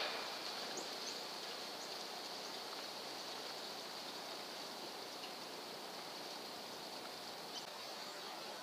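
Steady outdoor background hiss with no distinct event, and a few faint, short high chirps about a second in.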